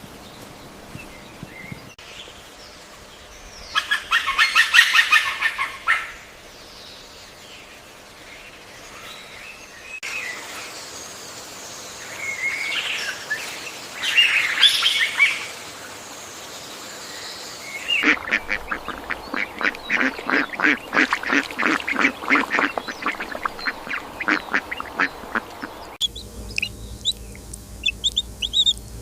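Ducks quacking in bursts of quick repeated calls, across several short segments that change abruptly every few seconds.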